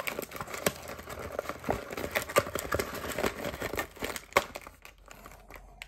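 Plastic wrapping on a trading-card hobby box crinkling and tearing as the box is opened: a busy run of sharp crackles, with louder snaps about two and a half and four and a half seconds in, getting quieter near the end.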